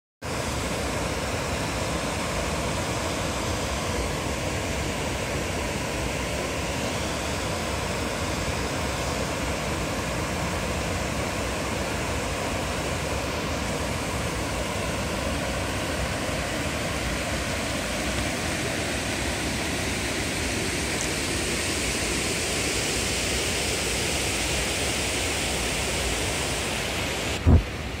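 Steady rushing of river water pouring over a weir. A brief low thump near the end, after which the rushing drops abruptly in level.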